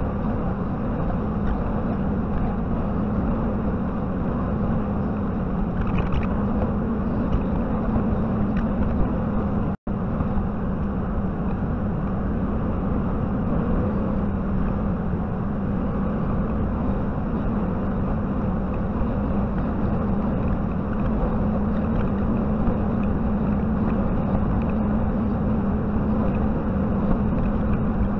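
JCB 55Z mini excavator's diesel engine running steadily with a strong low hum while it works. The sound cuts out for an instant about ten seconds in.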